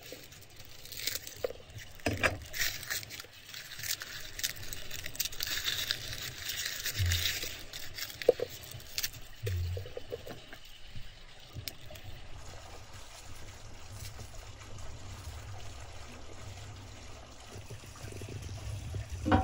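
A knife cutting through a head of garlic, then cloves being broken off and their papery skins crackling and rustling on a wooden tray, with scattered small clicks. Later, steady low background noise, with a short knock near the end.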